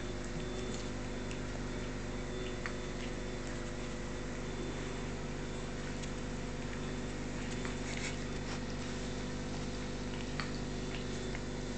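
A steady low hum, with a few faint, sharp clicks and taps scattered through it from a fox terrier pouncing and snapping at soap bubbles on a rug.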